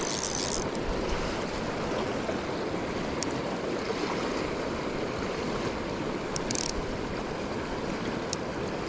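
River water rushing steadily. Two short high-pitched zips of the fly reel's drag giving line to a hooked rainbow trout: one ends about half a second in, the other comes at about six and a half seconds.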